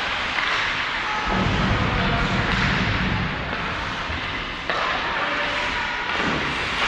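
Hockey game play sounds in a rink: a steady wash of noise with a low rumble for a couple of seconds and a sudden knock about two-thirds of the way in.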